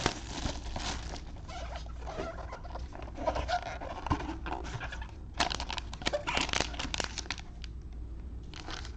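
Plastic shrink wrap being torn and crinkled off a trading-card hobby box by gloved hands, then the cardboard box lid being opened and a foil-wrapped pack pulled out. A busier run of crinkling starts about five seconds in.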